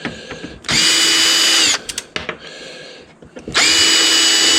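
Power drill driving out screws from a metal casing: two runs of about a second each, the motor's whine rising as it spins up and dropping off as the trigger is released, with small clicks and taps between.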